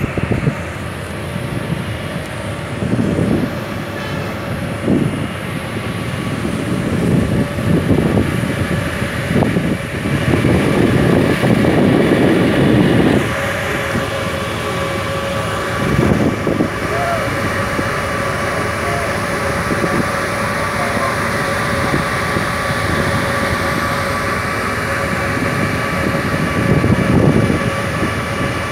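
Steady drone of a ship's engines and machinery while underway, with a few held tones. Irregular gusts of wind buffet the microphone, the strongest about ten to thirteen seconds in.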